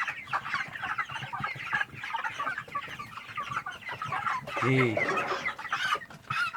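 A flock of five-week-old meat chickens clucking and cheeping, many birds calling over one another without a break.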